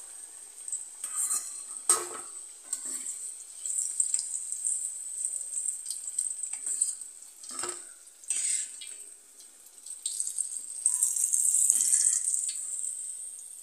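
Batter-coated susiyam dumplings sizzling as they deep-fry in hot oil in a steel kadai. A slotted steel ladle scrapes and knocks sharply against the pan a few times as the fried dumplings are lifted out.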